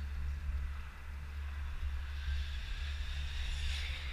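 Radio-controlled car approaching along the track, its high whir growing louder over the last two seconds, over a steady low rumble.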